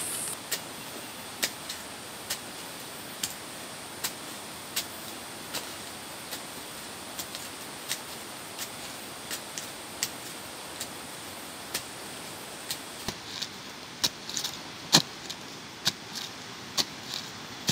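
Short-handled hoe chopping into damp soil and roots, with sharp strikes about once every second that come closer together and louder in the last few seconds, over a steady background hiss.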